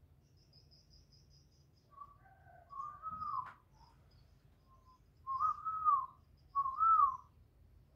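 Spotted dove cooing: short rising-and-falling coo phrases, a softer one about a third of the way in and two louder ones close together past the middle. Faint high chirping in the first second.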